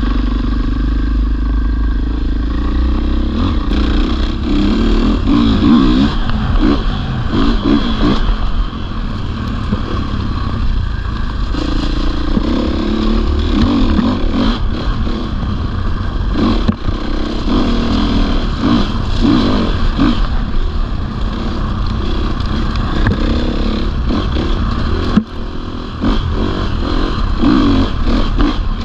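450cc single-cylinder four-stroke enduro motorcycle being ridden off-road, the engine revving up and down with the throttle, with repeated clattering knocks from the bike over bumps. The engine briefly drops off near the end.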